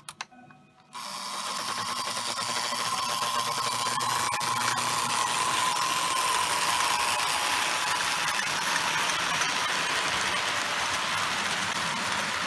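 Lionel 682 O-gauge steam turbine locomotive: a click right at the start as its E-unit reversing switch cycles, then about a second in its electric motor starts, the whir and gear whine building over a second or two and then running steadily as the locomotive moves off.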